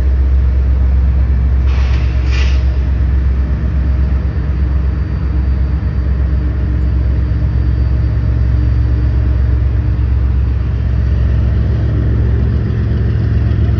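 Road traffic and idling engines making a steady low rumble, with a brief hiss about two seconds in.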